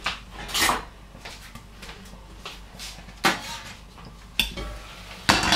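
Kitchenware being handled: about five separate clinks and knocks of pots, lids and utensils, spread across a few seconds.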